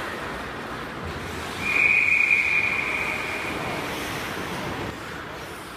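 Ice hockey referee's whistle, one long blast of about two seconds stopping play, over steady arena background noise.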